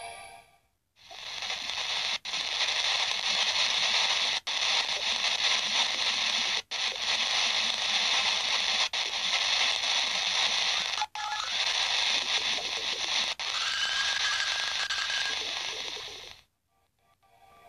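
Steady static-like hiss of a space radio recording played as sound, cut by brief dropouts about every two seconds. It fades in at the start and cuts off suddenly near the end.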